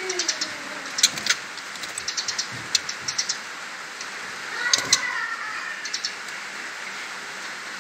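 Young white-rumped shamas moving about a barred cage: many short, sharp ticks and taps, with louder knocks about a second in and again near five seconds, the second joined by a brief chattering sound.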